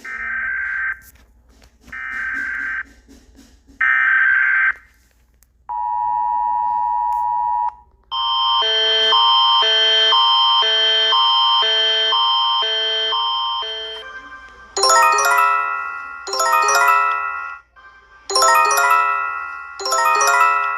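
Emergency alert tones played in sequence: three short data bursts of US Emergency Alert System header tones, then the two-tone EAS attention signal for about two seconds, then a pulsing, alternating Canadian Alert Ready tone for about six seconds. It ends with a Japanese alert chime, four short runs of descending chime notes.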